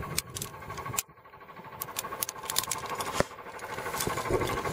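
Climbing rope being handled and rustling, with scattered small clicks and clinks of carabiners and metal gear as a Munter hitch is tied on a carabiner. There is one sharper click a little after three seconds in.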